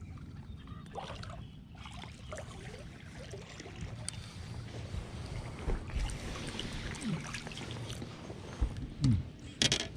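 Fishing boat on the water: a steady low rumble with faint scattered ticks, and a few sharp knocks near the end.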